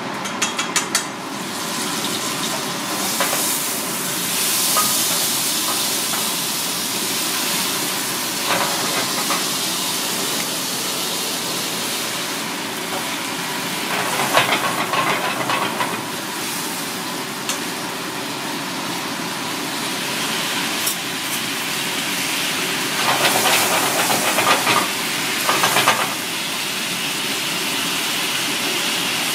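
Butter sauce sizzling and bubbling in a small wok over a gas burner, a steady hiss. A wooden spatula stirs and scrapes the pan in several short spells, the longest about halfway through and again near the end.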